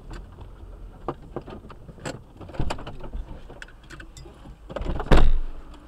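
Sound inside a moving car picked up by a dashcam: scattered light clicks and knocks over a low road rumble, then a single loud thump about five seconds in.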